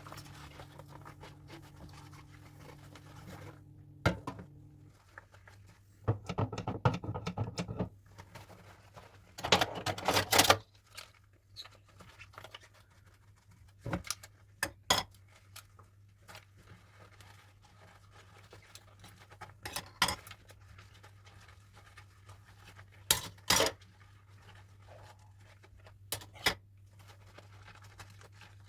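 Dishes and cutlery being handled while washing up by hand: scattered clinks and clatters, with two noisy stretches of a second or two early on, over a faint low steady hum.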